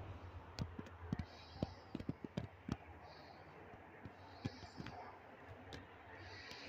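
Irregular sharp clicks and light knocks, bunched together in the first three seconds and sparser afterwards, over a faint steady background.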